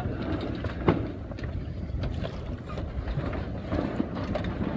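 Wind buffeting the microphone and water rushing along the hull of a Hunter 27 sailboat under sail, with a single sharp knock about a second in.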